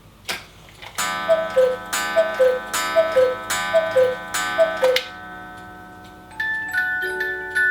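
Black Forest cuckoo clock with a mechanical 8-day movement striking the hour: five two-note cuckoo calls, each with a ringing gong strike, about one a second. About a second and a half later its music box starts playing a melody, over the steady ticking.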